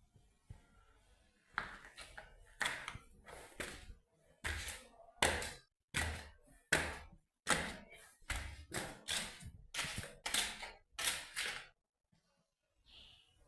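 A run of about twenty sharp knocks, each ringing briefly, at an uneven pace of one to two a second; they start about a second and a half in and stop about twelve seconds in.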